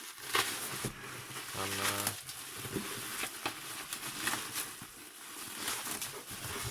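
Rustling and crinkling of packaging and box contents being handled, with scattered light clicks and knocks.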